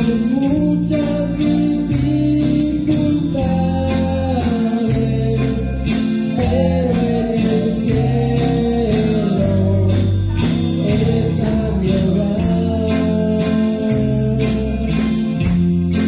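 A live worship band playing a Spanish-language hymn: a man sings with electric guitar, bass guitar and keyboard. A steady beat of high ticks, about three a second, runs underneath.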